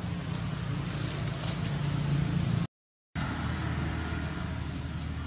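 Outdoor background noise: a steady low drone, as of a distant motor, under a high even hiss. It drops out to a brief dead silence a little past halfway, then comes back with a slightly different low hum.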